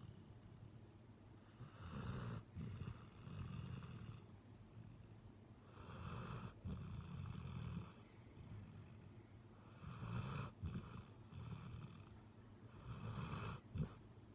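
A sleeping Labrador retriever snoring. There are four snoring breaths, about one every four seconds, each a low rumble with a high whistle over it.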